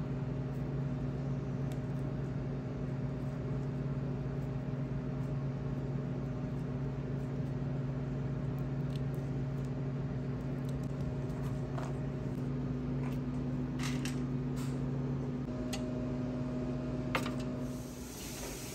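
Steady machine hum, like a kitchen fan or refrigeration unit, with a few faint clicks and taps over it. The hum drops away about eighteen seconds in.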